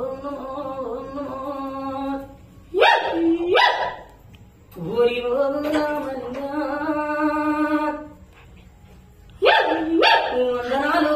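A voice chanting a devotional song in long held notes, broken twice by a pair of short, loud, sharp cries.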